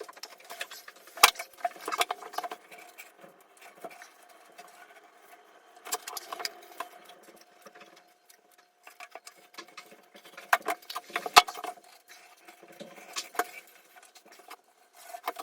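Irregular clicking and rattling of small hard objects being handled, in clusters a few seconds apart, over a faint steady hum.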